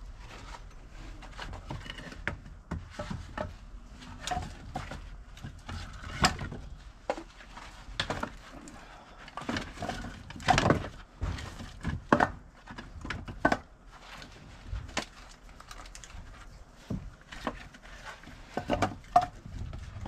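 Split firewood pieces clunking and knocking against each other as they are pulled from a stacked woodpile and gathered into an armload, in an irregular series of wooden knocks, a few of them louder.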